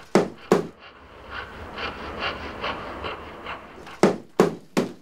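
Heavy rhythmic panting, about two to three breaths a second, broken by loud sharp thumps twice near the start and three times near the end.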